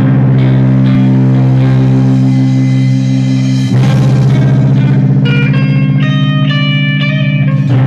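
Thrash metal band playing live: distorted electric guitar and bass guitar hold a loud chord, which is struck again a little under four seconds in. In the second half a run of higher single notes steps up and down over it.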